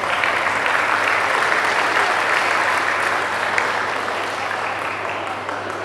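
Audience applauding: many hands clapping, swelling at once and slowly tapering off toward the end.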